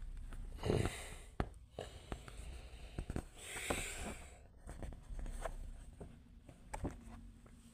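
Handling sounds of a paper book: rustling pages with scattered light clicks and knocks, a dull thump near the start being the loudest, and a short rustle about halfway through.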